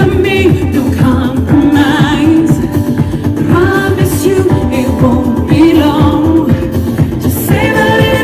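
Live dance-pop music played over a PA: a steady pulsing beat under long, wavering sung notes.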